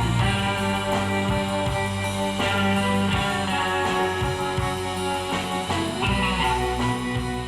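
Rock music with electric guitar and drums, played back through small Fostex P1000K full-range drivers in quarter-wave resonator speaker cabinets.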